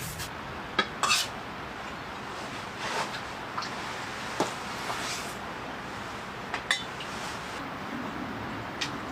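Steady rain with scattered clinks and knocks of dishes and utensils being handled, about eight in all, the loudest a little over a second in and just before the seven-second mark.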